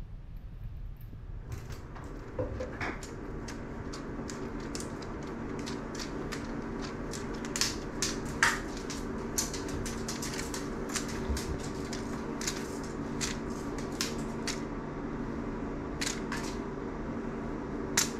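A steady mechanical hum, like a fan or air conditioner, with irregular sharp clicks and taps scattered through it.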